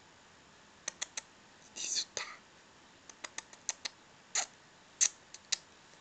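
A short whispered sound about two seconds in, among a scattered series of sharp little clicks and taps, the loudest near the end.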